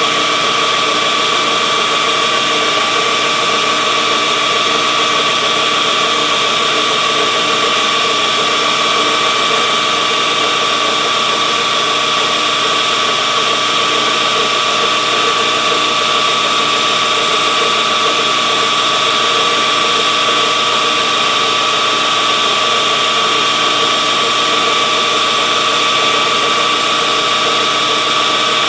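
Metal lathe running steadily while a carbide insert turns a tapered point on a spinning steel bar, a constant whine over the cutting noise.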